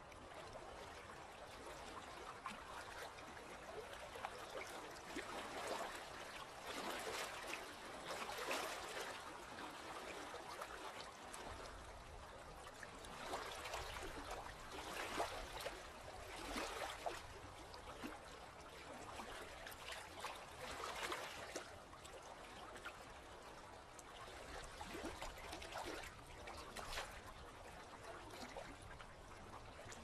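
Gentle ripples of calm sea water lapping and trickling close to the microphone, swelling and fading every few seconds.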